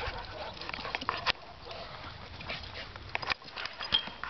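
A dog sniffing and snuffling at a hanging tetherball. Scattered light knocks and rustles come as it noses the swinging ball and moves about on dry grass, with the sharpest knocks about a second in and near the end.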